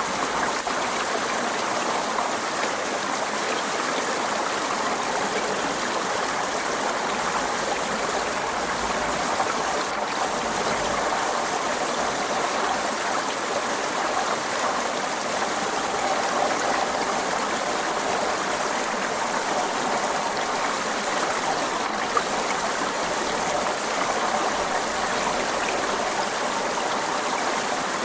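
Forest stream flowing, a steady, unbroken rush of running water.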